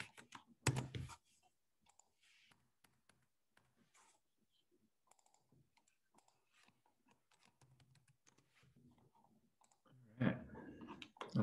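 Faint computer keyboard typing, a scatter of soft key clicks. A brief voice sounds just under a second in and again near the end.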